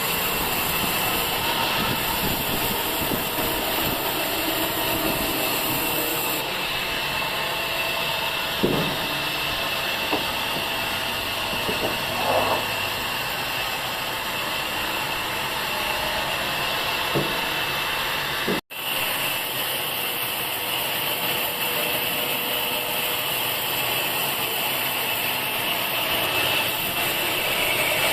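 Sawmill machinery running steadily, with a steady high whine over the motor noise and a few short knocks. The sound drops out for an instant about two-thirds of the way through.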